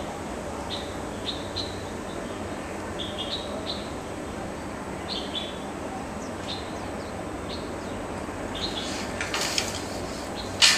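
A small bird chirping repeatedly in short high notes, in twos and threes about once a second, over a steady background hiss. Near the end, a rustle and then a sharp knock, the loudest sound.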